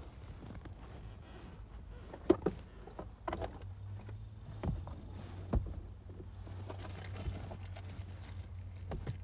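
Scattered knocks and clicks of hand tools and metal parts being handled, several separate strikes a second or more apart. A steady low hum comes in a few seconds in.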